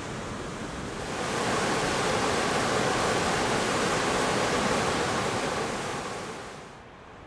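River rapids rushing as a steady wash of water noise, swelling about a second in and fading out near the end.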